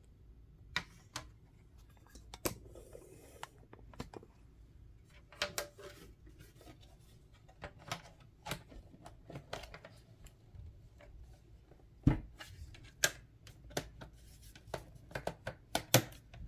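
Plastic laptop bottom case being fitted back on by hand: irregular clicks, taps and knocks of plastic on plastic, with a louder knock about twelve seconds in and another near the end.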